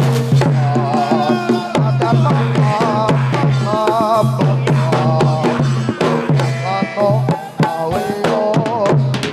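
Instrumental music: drums beat a busy, fast rhythm under a wavering melody and repeated low bass notes.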